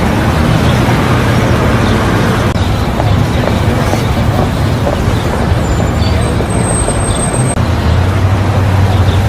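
Steady, dense ambient noise like road traffic, with a low hum and possibly voices mixed in. A brief thin high tone sounds about six and a half seconds in.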